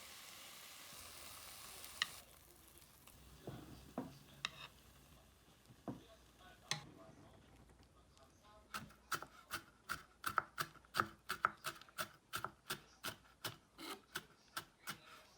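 Frying sizzle that cuts off about two seconds in, a few scattered clinks, then eggs being beaten in a bowl: a quick, regular run of about twenty strokes of the utensil against the bowl, roughly three a second.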